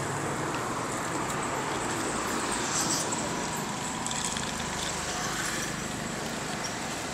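Roadside traffic ambience: a steady hum of passing motorbikes and cars, with faint voices in the background.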